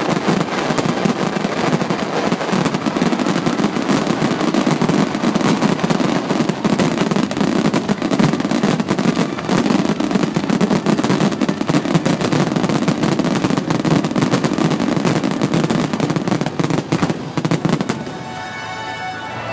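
Starmine fireworks barrage: a dense, continuous rapid-fire clatter of shell bursts and crackling, each shot hard on the last, which dies away about a second before the end as music comes through.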